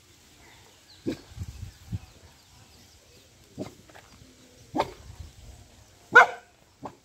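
Short animal calls, four or five of them spaced a second or more apart, the last the loudest.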